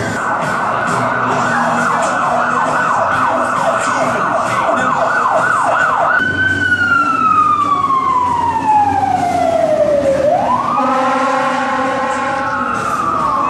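Emergency vehicle siren on the street: a fast yelp that slows, then about six seconds in changes to a long wail falling in pitch over about four seconds before rising again. Near the end a steady tone of several notes joins it.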